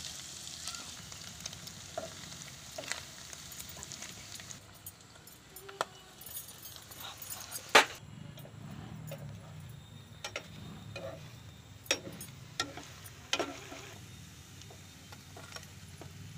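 Paneer cubes sizzling as they shallow-fry in oil in a nonstick pan, just starting to turn light brown. The sizzle is strongest for the first four seconds or so and then drops, with scattered clicks and knocks of a utensil, the loudest about eight seconds in.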